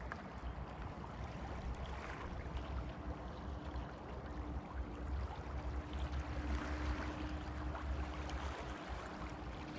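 Steady wash of flowing river water, with a low rumble of wind on the microphone underneath.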